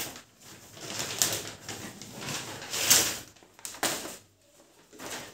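Plastic wrapping rustling and crinkling in irregular surges as it is pulled off a pedestal fan's round base, with a few sharper crackles near the end as the base comes out of the cardboard box.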